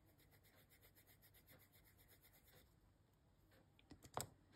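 Faint, quick strokes of a white coloured pencil shading on paper, about five strokes a second, stopping after a couple of seconds. A few light clicks follow near the end.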